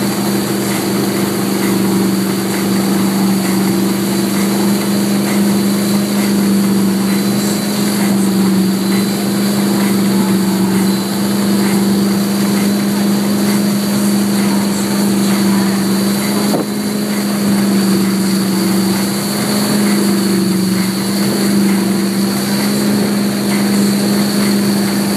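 Towing boat's engine running steadily at a constant pitch, over the rush of its churning wake.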